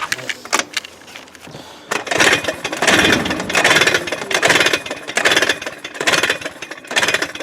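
Suzuki Address 110 two-stroke scooter engine: a few clicks, then about two seconds in it runs and is revved in repeated short blips, with the rattling knock the mechanic is chasing inside the motor.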